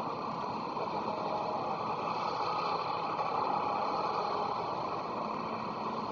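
Steady rumble and hiss of railway station background noise, even throughout with no distinct event.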